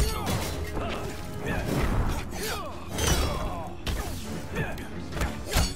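Action-film fight soundtrack: dramatic score under a string of sharp hits, crashes and whooshes.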